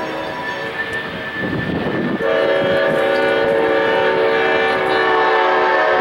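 Diesel switcher locomotive's horn blowing a sustained chord. It eases off for under a second about a second and a half in, with the locomotive's rumble showing through, then sounds fully again from about two seconds in.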